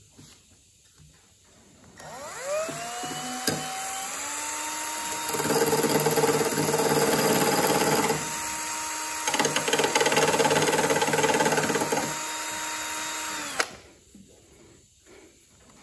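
Cordless drill spinning an abrasive cutting wheel: the motor whine rises as it spins up and then holds steady. Twice, for about three seconds each, it turns louder and rougher as the wheel grinds a shallow groove into the edge of a fiberglass panel. It runs free again and then stops abruptly near the end.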